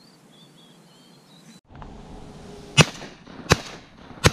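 Three shotgun shots in quick succession, about three-quarters of a second apart, after faint high chirping in the first second and a half.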